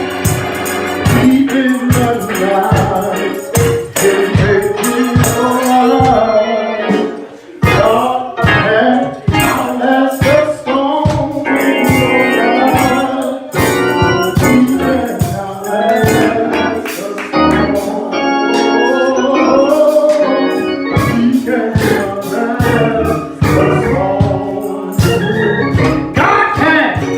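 Gospel music led by organ, with a steady beat.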